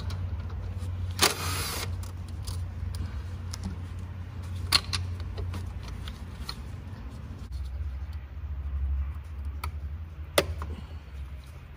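Hand work on parts under the hood, likely the one more item he forgot to disconnect: a short scraping rustle about a second in, then a few sharp clicks, over a steady low hum.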